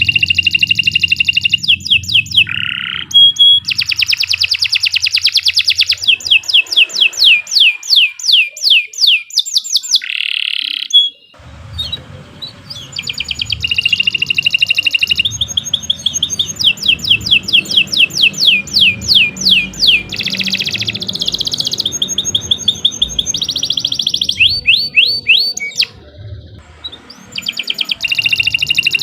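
Domestic canary singing long song phrases of rapid repeated notes and trills, some phrases falling in pitch, with short pauses twice.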